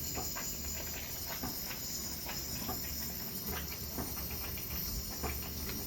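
Dental unit waterline on automatic purge, water spurting and trickling out of the line with irregular small ticks and crackles over a steady hiss.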